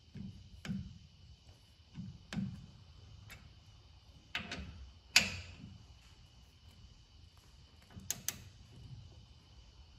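A torque wrench tightening a brake caliper mounting bolt to 28 foot-pounds: scattered sharp metallic clicks at an uneven pace, the sharpest about five seconds in and a quick double click near the end.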